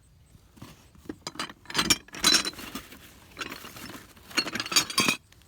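Glass and other hard objects clinking and knocking together as they are handled and shifted, in two bursts of sharp clinks with a bright ringing tone.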